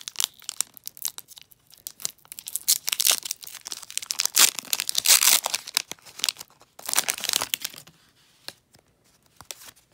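A Pokémon booster pack's foil wrapper being torn open and crinkled: dense crackling and ripping that dies down about eight seconds in, leaving a few faint clicks.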